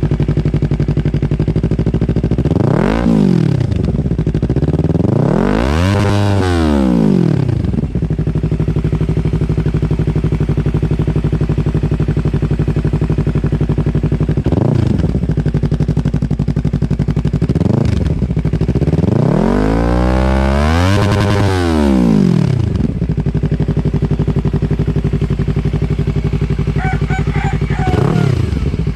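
Yamaha R3's parallel-twin engine breathing through an aftermarket Akrapovic muffler, idling steadily and revved with the throttle: four short blips and two longer revs, one about six seconds in and one about twenty seconds in, each climbing and falling back to idle.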